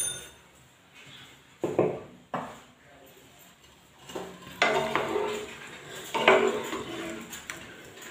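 Wooden spatula stirring and turning cauliflower florets in a nonstick frying pan, scraping and knocking against the pan in repeated strokes from about four and a half seconds in. Two sharp knocks come about two seconds in.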